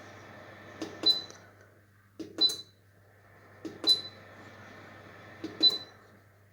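Four button presses on an electric fireplace's control panel, each a double click followed by a short high beep, spaced about a second and a half apart. The steady whir of the fireplace's heater fan runs underneath and drops away after the last press.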